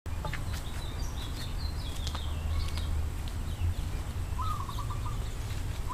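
Several birds chirping and calling, with a short trilled call about four and a half seconds in, over a steady low rumble.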